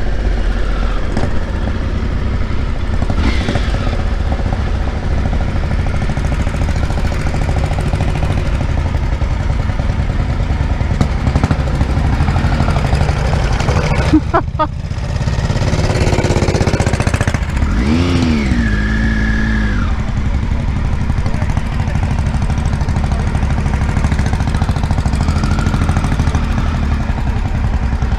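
Triumph Tiger 955i's three-cylinder engine running, heard from on board while riding. After a sudden break about halfway through, it runs at low speed, and another engine's note rises and falls briefly a few seconds later.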